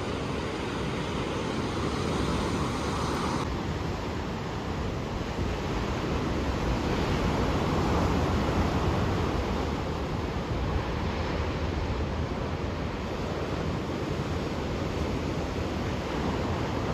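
Ocean surf washing onto the shore, a steady rush that swells to its loudest about halfway through, with wind rumbling on the microphone.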